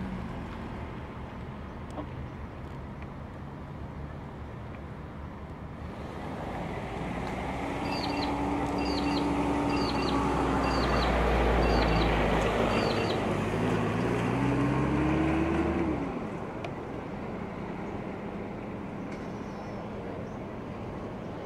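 A motor vehicle passing close by. Its engine hum and rumble build up over several seconds, the engine's pitch climbs and then falls, and the sound drops away suddenly. Six short, high chirps, about one a second, sound over the loudest part.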